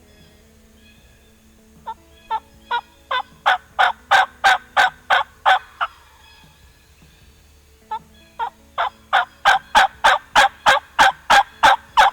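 Wild turkey hen yelping: two long, evenly paced runs of raspy yelps, about three a second, each run building in loudness, the second starting about eight seconds in.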